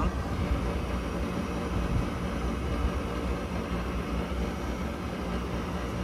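Draft inducer motor of a rooftop gas package unit running with a steady hum during a call for heat, the gas valve open but no spark and no burner light-off, because a faulty transformer on the control board is stopping the spark ignition.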